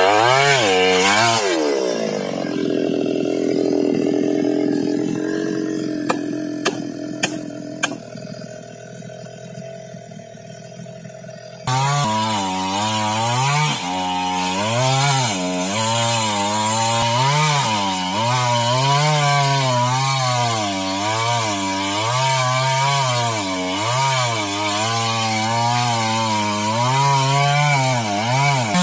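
Two-stroke chainsaw cutting timber for boat frames, its engine note rising and falling under load. About two seconds in it drops to a steady idle, with a few sharp clicks six to eight seconds in. Near twelve seconds it revs up again and goes back to cutting, its pitch swinging up and down.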